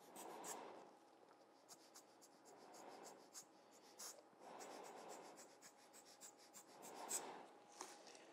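Faint, soft puffs of air from a hand-squeezed Giotto air blower pushing wet alcohol ink across the paper, a gentle whoosh every second or two.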